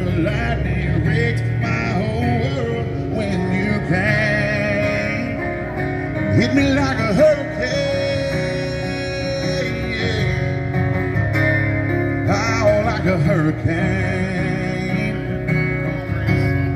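Live country music: a male singer with an acoustic guitar, amplified through a microphone and PA speaker.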